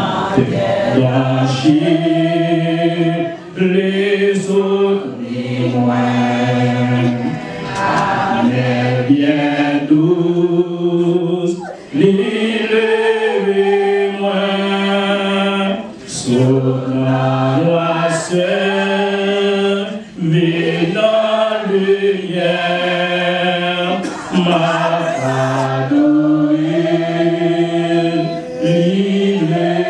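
A choir singing a hymn together, several voices holding long notes in slow phrases with brief breaks between them about every four seconds.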